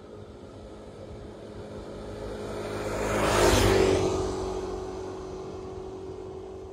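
A road vehicle passes close by: its noise swells to a peak about halfway through and fades away, over a steady low engine hum.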